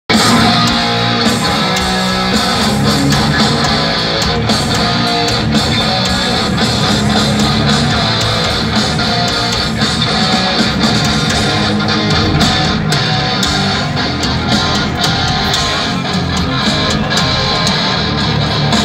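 Live heavy rock band playing loudly over a stadium PA, led by distorted electric guitars.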